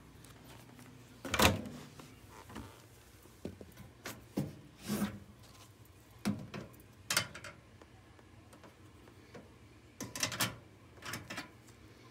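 Irregular knocks and clunks of something being handled, about eight in all. The loudest comes about a second and a half in, and a close pair comes near the end.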